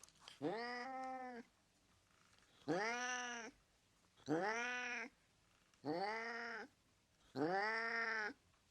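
Domestic cat meowing five times, each drawn-out call lasting about a second, rising in pitch at the start and then held, with short pauses between.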